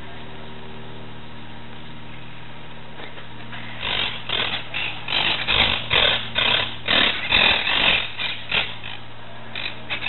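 Monk parakeets giving a run of harsh, grating squawks and chatter, starting about four seconds in and lasting about five seconds, with two short calls near the end, over a steady low hum.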